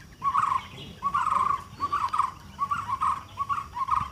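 An animal calling over and over: short, slurred calls all at about the same pitch, roughly two a second.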